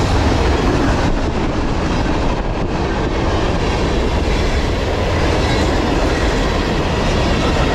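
Tank cars and covered hoppers of a long CSX freight train rolling past close by at about 42 mph, a steady, loud rolling noise of steel wheels on rail.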